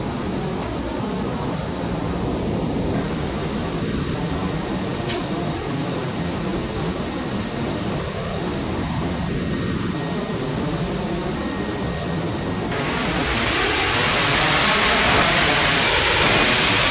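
Steady drone of a C-17 Globemaster III's cargo hold in flight, engine and airflow noise. About thirteen seconds in, a louder rushing hiss of air comes in suddenly and keeps going.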